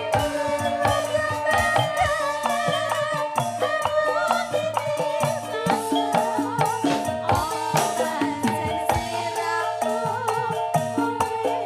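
Live campursari music, Javanese gamelan-style pop played by a band: sustained keyboard-like chords and a wavering melody line over quick, busy percussion strokes.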